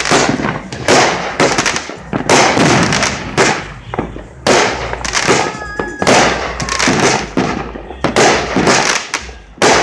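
Fireworks going off in quick succession: a dozen or so sharp bangs, about one or two a second, each trailing into crackle as aerial shells burst.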